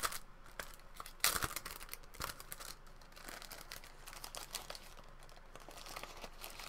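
Sheets of 1000-grit sandpaper being handled: paper rustling and crinkling with a few sharp clicks, loudest about a second in.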